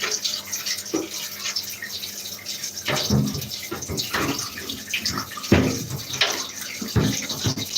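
Bath tap running water into a tub, with several sharp plastic knocks as the Dyson vacuum's parts are handled and fitted back together while being rinsed.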